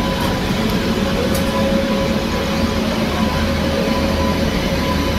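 An Indian Railways express train running on the rails, heard from on board: a steady rumble and rush of the coaches, with a faint steady whine over it.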